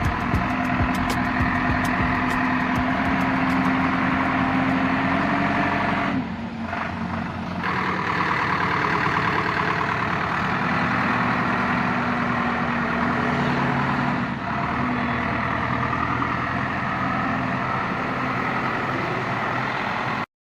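A large engine running steadily, its pitch shifting a few times, with a short drop in level about six seconds in.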